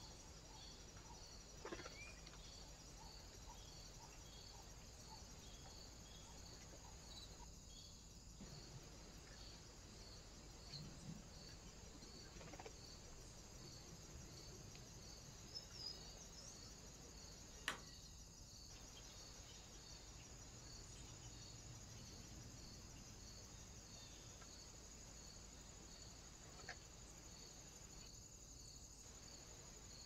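Near silence: the faint steady hiss of a trail camera's recording, with an even, high pulsing tone that repeats throughout and a few faint clicks, the sharpest a little past halfway.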